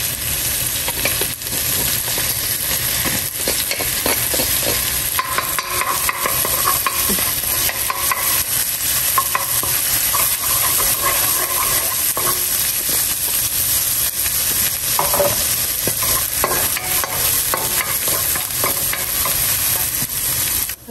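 Minced garlic and ginger sizzling in hot oil in a wok, crackling steadily, while a wooden spoon stirs and scrapes them across the pan. The sizzle cuts off suddenly at the very end.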